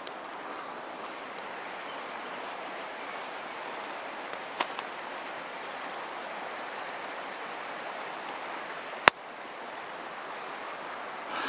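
Steady rushing hiss of open-air ambience with a few sharp pops from a pine-wood campfire. The loudest pop comes about nine seconds in.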